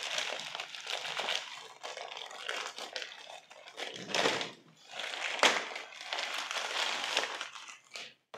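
Thin plastic packaging bag crinkling and rustling unevenly as hands tear it open and pull a small cardboard box out of it.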